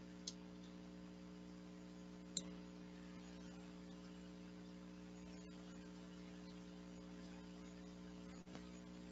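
Faint steady electrical mains hum, with two short faint clicks, about a third of a second in and again about two and a half seconds in.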